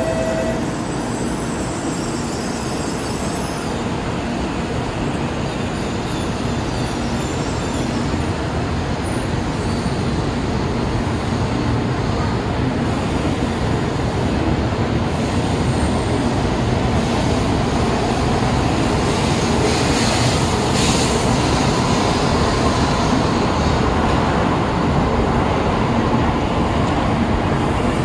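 Tokaido Shinkansen train running at the platform: a steady rumble and rush that slowly grows louder.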